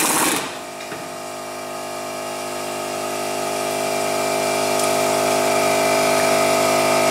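A power tool turns the forcing screw of a hub puller for about half a second at the start. Then a steady motor hum with a fixed pitch, slowly growing louder, runs on.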